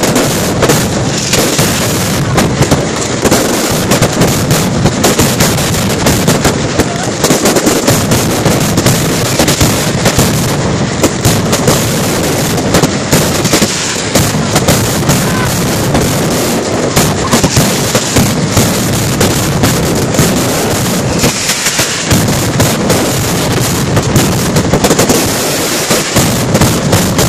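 Mascletà firecrackers and aerial fireworks going off in a dense, unbroken barrage of rapid overlapping bangs, very loud throughout with no pause.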